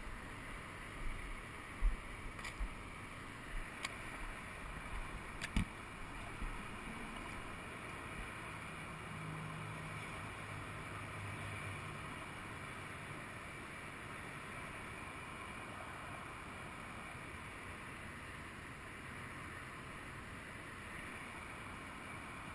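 Steady outdoor background noise with a distant traffic hum, broken in the first few seconds by several short knocks and bumps from the body-worn GoPro being jostled. A faint low hum rises for a few seconds near the middle.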